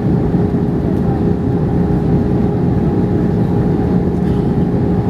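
Airbus A321ceo airliner cabin noise on descent toward landing: a steady rumble of engines and airflow with a constant hum.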